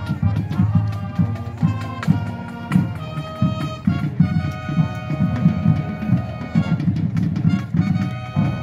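High school marching band playing on the field: brass instruments, including a sousaphone, holding tones over the drumline's steady beat.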